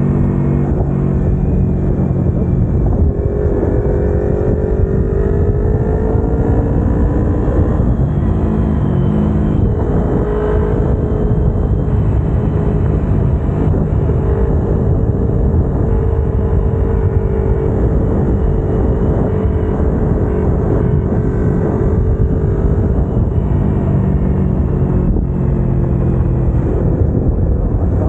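Kawasaki Ninja 250R's parallel-twin engine running under way over a steady rush of wind noise. The revs rise about three to five seconds in, dip briefly near eight seconds, hold steady through the middle, then settle to a lower note in the last few seconds.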